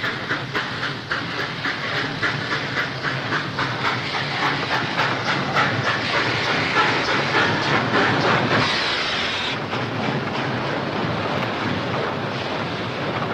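Steam locomotive working, its exhaust chuffing in quick, even beats that run together into a steady rush of steam, with a short burst of louder hissing steam about nine seconds in.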